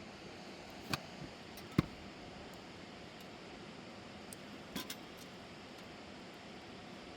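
A few short sharp knocks, the loudest just under two seconds in and another small cluster about five seconds in, over a steady rushing background.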